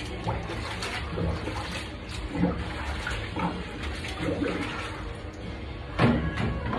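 Water sloshing in a stainless steel three-compartment sink as bar glasses are washed by hand, with scattered knocks of glassware. The sharpest and loudest knock comes about six seconds in.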